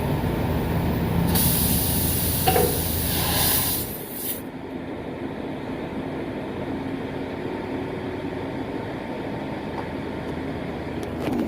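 Pressurised air hissing loudly out of a truck tire's puncture for about three seconds, starting about a second in, as the plug tool is forced into the hole, over a low engine rumble that drops away about four seconds in.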